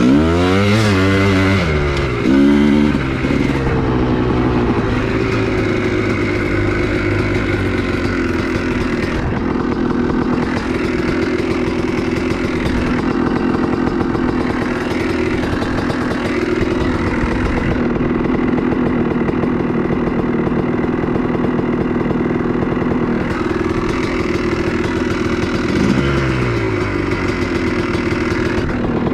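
2003 Honda CR250R's single-cylinder two-stroke engine, heard from on the bike while riding. Its pitch rises and falls a few times in the first three seconds as it is revved through the gears, then it runs at a steady throttle. It revs briefly once more near the end.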